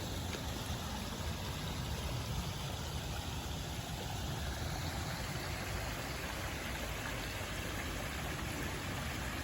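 Steady rushing of flowing water in a river or stream, an even, unbroken wash of noise.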